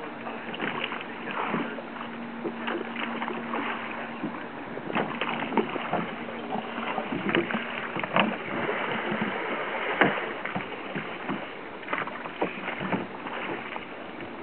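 Wooden rowing gig being rowed: irregular knocks and splashes from the oars working in their oarlocks and dipping into the water. A steady low hum runs through the first few seconds, then fades out.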